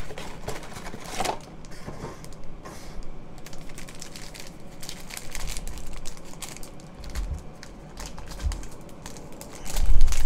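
Hands opening a cardboard trading-card retail box and handling its flaps and packaging: a run of small irregular clicks and rustles, with a few dull knocks, the loudest near the end.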